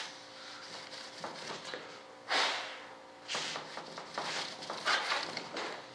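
Paper towel rubbing mold release wax onto the flange of a composite mold, in several short swishing strokes, the loudest a little over two seconds in.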